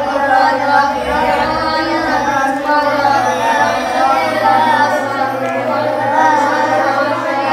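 Several boys reciting the Quran aloud at the same time in a sing-song chant, their voices overlapping, as in a hifz (memorisation) class.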